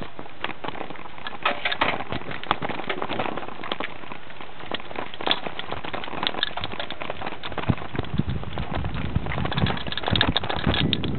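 Bicycle and its wire front basket rattling over a bumpy dirt track: a rapid, irregular clatter of knocks and jolts, with a heavier low rumble in the last couple of seconds.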